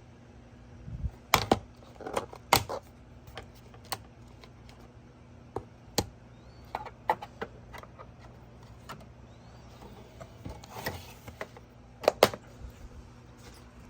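Irregular clicks and knocks, a few of them louder, over a steady low electrical hum.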